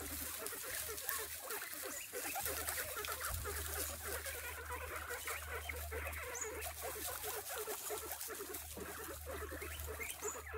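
A herd of guinea pigs squeaking and chattering together, a dense run of short overlapping calls with no let-up. A steady low hum lies underneath.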